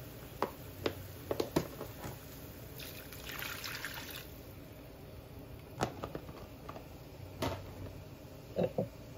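Thin gravy mix poured from a plastic container into a skillet of broth and onions, splashing for about a second and a half near the middle. A few short sharp knocks come before and after it.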